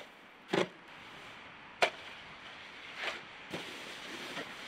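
A snowboarder and his board slamming onto hard, icy packed snow: several sharp knocks and slaps, then the steady scraping hiss of the board's base sliding over the snow.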